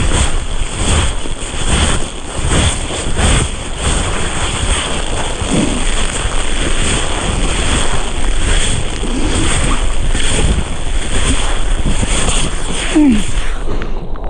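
Hailstorm with wind buffeting a handheld action camera's microphone: a loud, steady rushing noise broken by frequent knocks and crunches as the camera moves over hail-covered ground.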